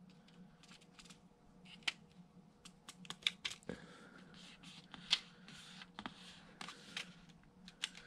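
Faint, irregular clicks and crinkles of a thin adhesive cooling-duct film being pressed and smoothed down by hand over a laptop's internals, with a few sharper clicks now and then.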